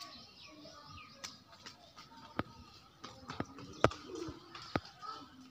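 Birds calling, with several sharp clicks; the loudest click comes about four seconds in.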